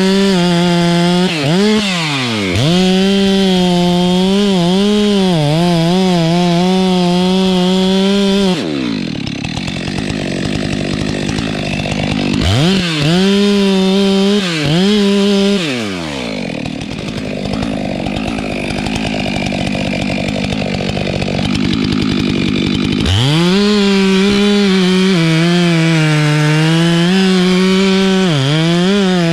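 Stihl MS 462 two-stroke chainsaw running at high revs, the pitch wavering and dipping as it cuts. Twice it drops back to idle, with a couple of quick throttle blips in between, then it goes back to full throttle.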